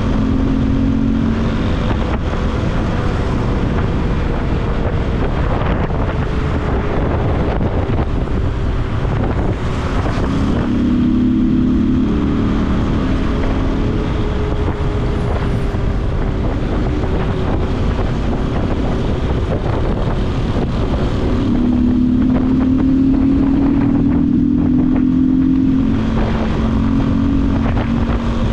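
Yamaha Lander 250 single-cylinder engine running while riding, under heavy wind rush on the microphone. The engine note strengthens and climbs twice under acceleration, about ten seconds in and again about twenty-two seconds in.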